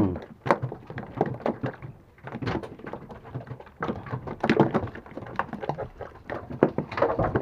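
Irregular knocks and clatter of fishing tackle and hands bumping against a small fibreglass boat's hull while bait fish are handled.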